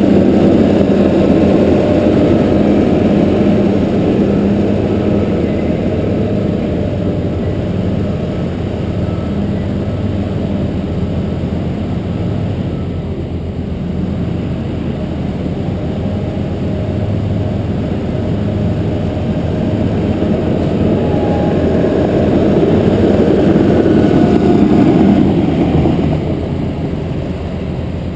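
Caterpillar D4G crawler dozer's diesel engine running as the machine moves over gravel. It is loudest near the start, quieter through the middle and louder again a few seconds before the end as the dozer comes back close.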